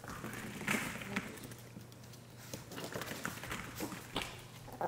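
Small dogs' claws clicking and pattering on a hardwood floor as they scamper and scuffle in play, in quick irregular taps, with a short scuffling rush about a second in.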